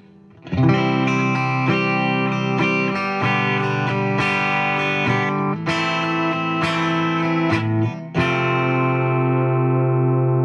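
Clean electric guitar through a Boss Katana amp with a JHS Ross Compressor switched on, playing a run of strummed chords. Several chord changes come with brief dips, and a last chord struck about eight seconds in sustains evenly.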